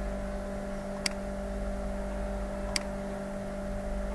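Two sharp computer-mouse clicks, about a second and a half apart, placing line endpoints in CAD software, over a steady low electrical hum.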